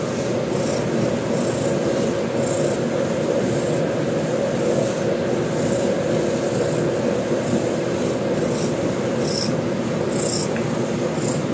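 A Scottish Straight cat purring while its belly is rubbed, mixed with the steady hum of a computer. Soft rustles of a hand stroking its fur come every second or so.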